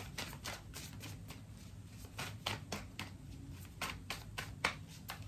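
A deck of tarot cards being shuffled by hand: a quiet, irregular run of light card clicks, several a second.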